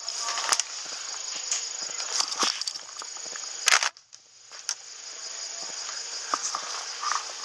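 Steady insect chorus in summer grass, with scattered light clicks and rustles. A single loud, sharp crack comes a little past the middle, followed by a brief dropout of all sound.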